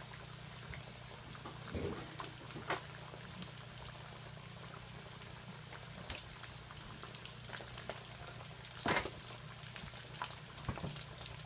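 Chicken ravioli frying in hot oil, a steady sizzle and crackle, with a couple of louder knocks about three and nine seconds in.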